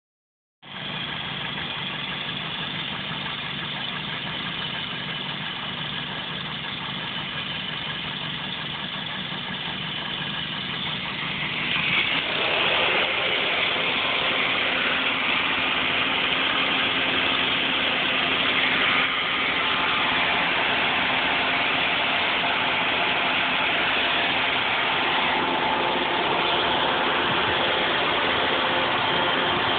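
2001 Toyota Celica GT's 1.8-litre four-cylinder engine idling with a loud hissing leak, which the owner suspects is a vacuum leak or a leaking head gasket. The hiss grows louder and brighter about twelve seconds in.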